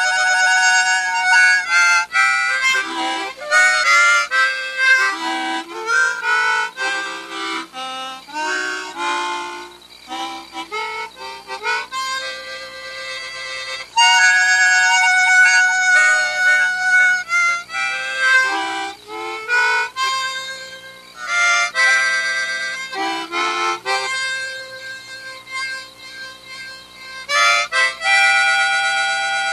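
Harmonica playing a melody of held notes and chords, in phrases with short breaks between them.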